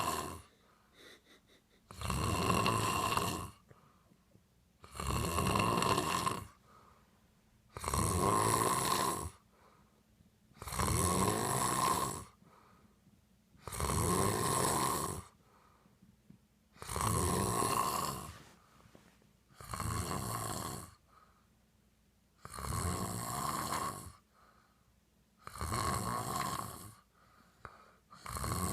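A man snoring in his sleep, one long snore about every three seconds with quiet breaths between them.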